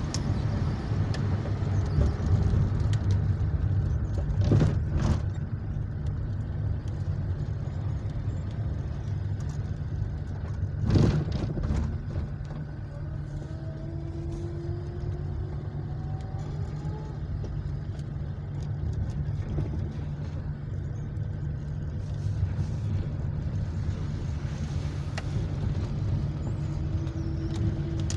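Car driving along a wet road, a steady low engine and tyre rumble. Two sharp knocks come through, about four and a half and eleven seconds in, the second the loudest.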